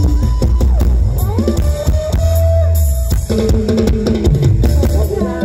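Loud amplified stage-band music: a drum kit and heavy bass under a plucked-string, guitar-like lead melody.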